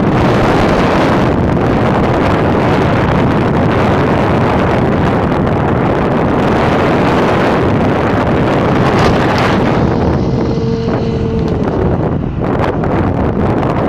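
Wind rushing over the microphone of a moving motorcycle, a loud steady rush that eases slightly about ten seconds in.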